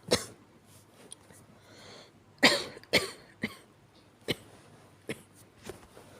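A person coughing weakly in short, separate coughs: one at the start, a breath in, a louder pair about two and a half seconds in, then several fainter coughs spaced about a second apart.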